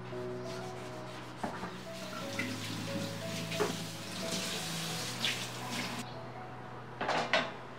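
Tap water running into a stainless steel sink while a wooden chopping board is rinsed and scrubbed under it, over background music. The water sound cuts off about six seconds in, and a brief loud clatter follows near the end.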